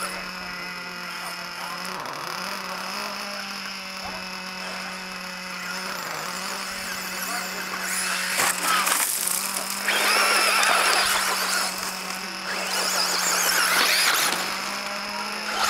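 Radio-controlled car running on a dirt track, its motor whining and tyres churning loose dirt. It comes in several loud bursts in the second half, over a steady low hum.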